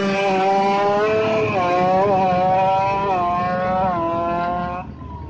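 Kawasaki Ninja 155cc drag bike's two-stroke single-cylinder engine revved high and blipped up and down several times, dropping away near the end. Under power its exhaust gives an odd clattering 'belatuk belatak' that the owner is trying to track down.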